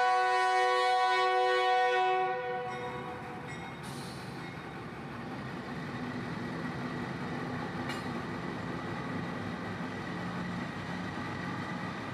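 Diesel locomotive horn holding a steady multi-note chord that cuts off about two and a half seconds in. It is followed by the steady rumble of Union Pacific diesel locomotives running light, with no cars, through the crossing.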